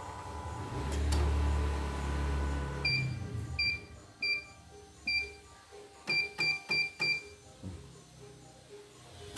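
CNY computerized embroidery machine: a low motor hum for about the first three seconds, then about eight short, identical beeps from its touch-panel control as buttons are pressed, with light clicks between them.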